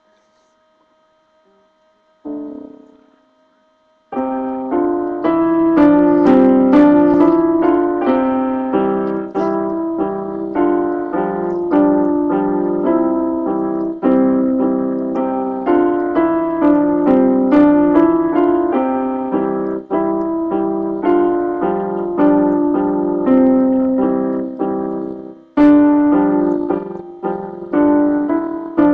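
Electronic keyboard on a piano voice, played by hand: one note rings out about two seconds in, then a steady tune of several notes at a time from about four seconds in, with a short break near the end.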